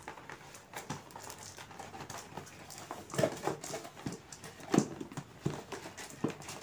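Cardboard product box being handled and turned over on a tiled floor: irregular scrapes, rubs and knocks, the loudest knock near the middle.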